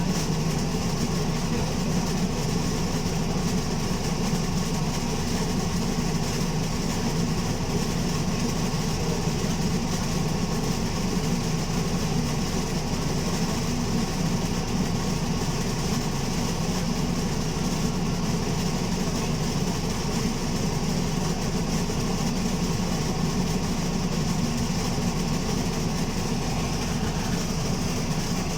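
Alexander Dennis Enviro200 MMC single-deck bus running with a loud, steady rumble that holds the same pitch throughout.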